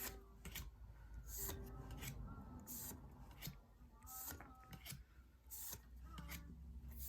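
Pokémon trading-card booster pack being opened and handled: the foil wrapper crinkles and the cards slide against each other, in a handful of short, faint rustles.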